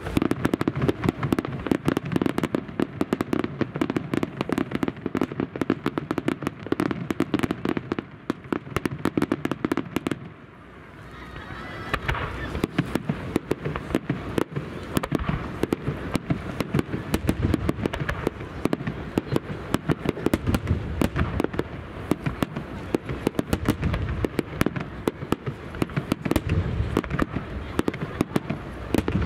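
Star mine fireworks barrage: a rapid, dense string of bangs and crackles from aerial shells launching and bursting. About ten seconds in the reports ease off briefly, with a short rising whistle, then the barrage picks up again.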